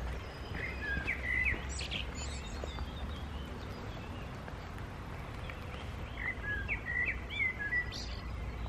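A songbird singing two short phrases of quick chirped notes, about five seconds apart, over a steady low background rumble.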